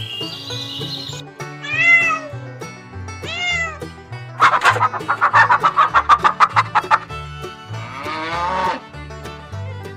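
Domestic cat meowing over background music: two short rising-and-falling meows, then a rapid pulsed call of about ten pulses a second lasting a couple of seconds, then a final falling meow near the end.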